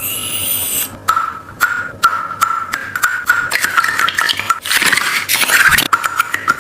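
A squishy toy squeaking and scraping as it is squeezed and rubbed: a run of short, same-pitched squeaks a few times a second, with rubbing noise that grows denser in the second half.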